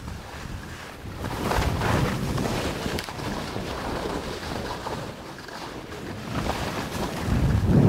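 Wind buffeting the microphone during a fast downhill run on snow, with the hiss and scrape of sliding over a crusty snow surface. It swells about a second and a half in and gets much louder and deeper near the end.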